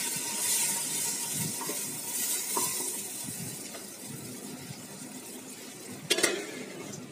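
Hot oil and browned onions sizzling in an aluminium pot after water is poured in, stirred with a metal spoon, the hiss dying down as it settles. About six seconds in there is a single sharp metallic clank from the aluminium lid on the pot.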